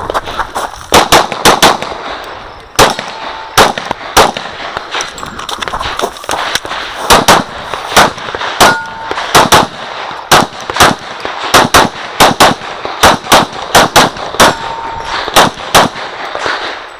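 Glock 35 .40 S&W pistol firing a long string of shots, mostly in quick pairs with short pauses between groups, during a timed practical-shooting stage. Steel targets ring briefly three times among the shots.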